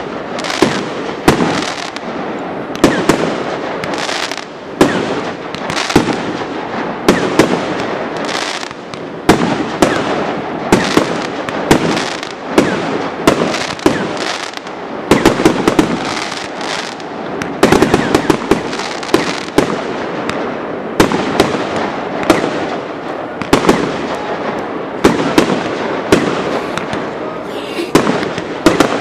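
Professional fireworks display: aerial shells launching and bursting in quick succession, one or two sharp bangs a second, over a continuous rush of crackling noise between them.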